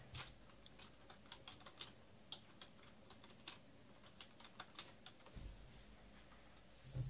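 Faint typing on a computer keyboard: irregular key clicks, a few a second, for about five seconds.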